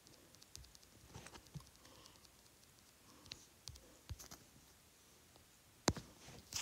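Light, scattered taps and clicks on an iPad's glass screen as handwritten strokes are erased from a note, with two sharper taps near the end.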